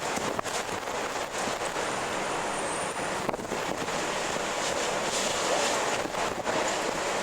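Strong wind blowing steadily, a dense rush of air with a few brief dips in level.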